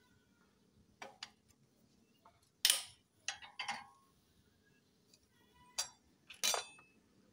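Pliers and small steel engine parts clinking against each other and the metal basin as the clutch side of a Honda Supra X 125 engine is taken apart. There are several separate sharp clinks, the loudest about two and a half seconds in, and the last ones ring briefly.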